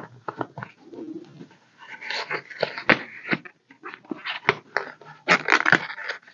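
Paper bills and envelopes being handled: irregular rustling and crinkling with short crisp clicks and snaps as cash is pulled out and stuffed into savings-challenge envelopes. It gets busier and louder about two seconds in.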